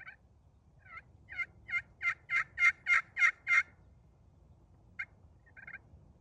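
Red slate over glass turkey pot call worked with a bloodwood striker, giving a run of about ten yelps at about three a second that grow louder, then a couple of softer notes near the end.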